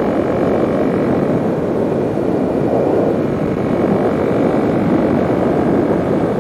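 Kawasaki KLX 300's single-cylinder engine droning steadily at cruising speed, around 60 mph, through a new Delkevic carbon slip-on exhaust, mixed with wind rush. It runs clean with no popping.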